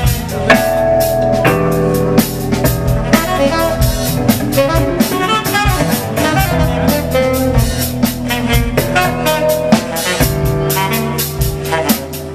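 Live instrumental jazz-funk band: a drum kit keeping a busy beat under electric guitar and held melodic notes from saxophone and keyboards.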